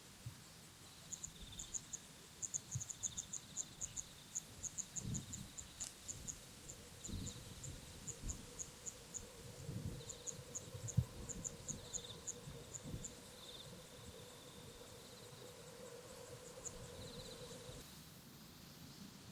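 An insect, cricket-like, chirping in many short, very high-pitched pulses that come in quick irregular runs, with a lower-pitched call repeating now and then. Soft low bumps and a faint steady hum lie underneath.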